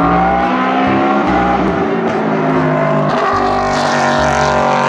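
GT race car engine running at high revs, its pitch climbing a little at first and then holding steady.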